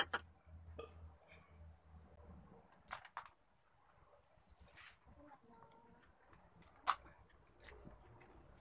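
Faint, scattered clicks and cracks of crab shells being handled and broken while eating. A faint steady high-pitched whine sits underneath.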